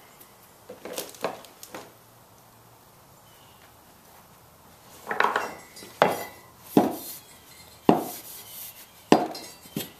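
Handling sounds from a bare aluminum bandsaw wheel on a plywood bench: a few light clicks, some rubbing, then four sharp knocks about a second apart as the wheel is knocked against the wood on its edge.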